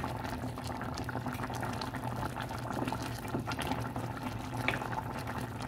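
Pot of instant noodles boiling in broth, a steady bubbling with many small, irregular pops.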